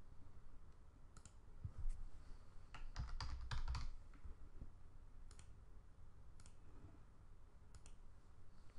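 Faint computer keyboard typing, a quick run of five or six keystrokes about three seconds in. Around it are scattered single clicks, the kind a computer mouse makes.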